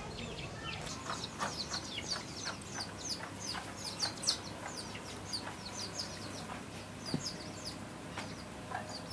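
Birds chirping: many short, high chirps overlapping one another, busiest through the middle.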